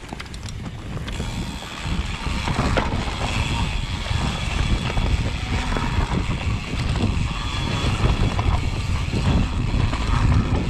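Wind buffeting a handlebar-mounted action camera, with tyres rolling over a dirt trail and the knocks of a Specialized Kenevo e-mountain bike over bumps. It grows louder over the first couple of seconds as the bike gathers speed downhill.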